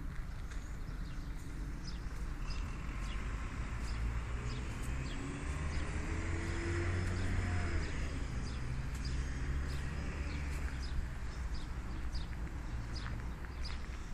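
Outdoor urban park ambience: a steady low traffic rumble, with a vehicle passing that swells through the middle and then fades. Short high chirps of small birds repeat throughout.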